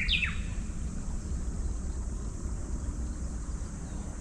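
Outdoor ambience: a steady low rumble, typical of wind buffeting the microphone, under a thin steady high hiss. A brief bird-like chirp sweeps down in pitch at the very start.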